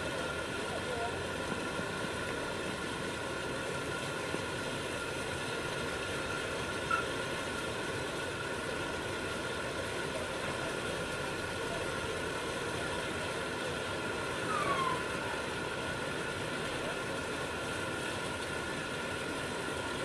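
Steady hiss of steam from LNER locomotive No. 61994 'The Great Marquess' standing and simmering, with a couple of faint short chirps partway through.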